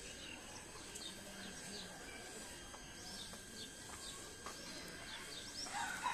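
Small birds chirping, many short scattered chirps, faint over a steady outdoor background hiss.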